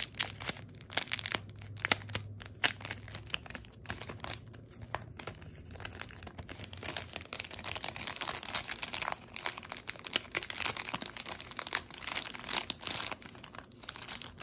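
A small packet of packaging crinkling and rustling in quick, irregular crackles as it is handled and opened by hand.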